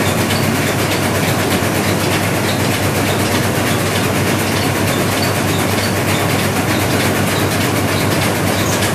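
Three-stone rice milling machine running steadily: a dense, even machine rattle over a constant low hum.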